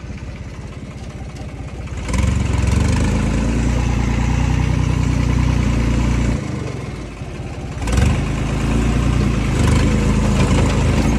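New Holland 3630 tractor's three-cylinder diesel engine running under the driver's seat. It revs up about two seconds in, eases off near the middle, then picks up again with a sharp knock at about eight seconds.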